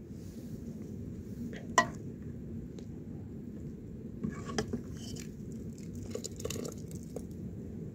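A metal pot or utensil clinks sharply once with a brief ring about two seconds in. Lighter knocks and rustles follow later, over a low steady rumble.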